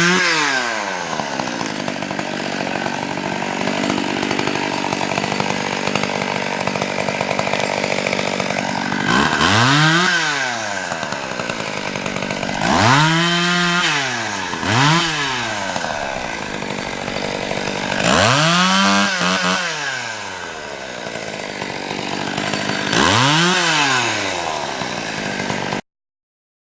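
An engine running steadily and revving up and falling back about six times, each rise lasting a second or two, before the sound cuts off suddenly near the end.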